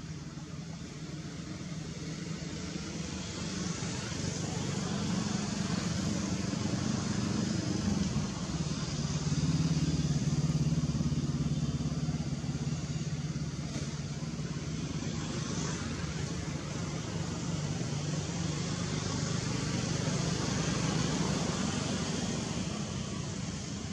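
A motor vehicle engine running steadily. Its low hum grows louder over the first few seconds and stays strong, with a steady hiss above it.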